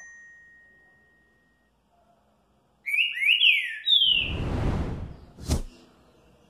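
Green-winged saltator (trinca-ferro) singing a short phrase of four clear, slurred whistled notes about three seconds in. The notes are followed by about a second of loud rough noise and a single sharp knock.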